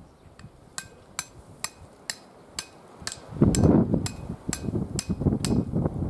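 Hammer blows on an iron stake being driven into the ground: about a dozen ringing metallic strikes, roughly two a second. Wind buffets the microphone from about halfway through, louder than the blows.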